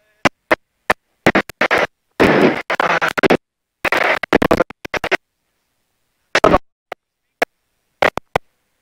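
Harsh, choppy bursts of noise inside a rally car's cabin, some brief as clicks and some about a second long, cutting in and out abruptly with dead silence between. No steady engine note is heard.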